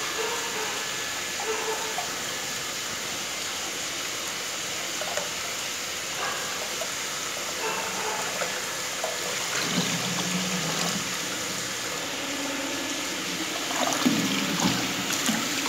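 Water rushing steadily through a water filter system being backwashed, with a few knocks near the end.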